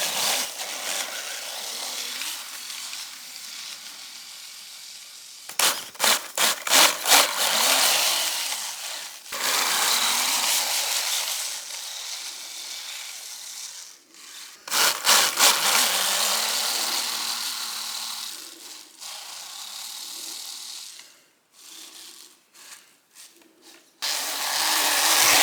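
Electric RC snowmobile running across slushy spring snow in bursts of throttle: a rasping churn from the track in the snow, several bursts opening with a rapid pulsing. It stops and starts again several times.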